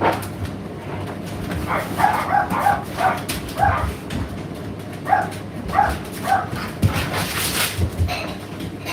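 Indesit condenser tumble dryer running with a steady low hum. Over it come about a dozen short, high-pitched squeaky calls in irregular runs, and a brief hiss near the end.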